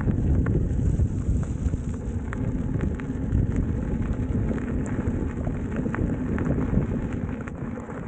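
Wind buffeting the camera's microphone while riding an electric unicycle, a loud, unsteady low rumble, with scattered small clicks and ticks from the ride over the trail.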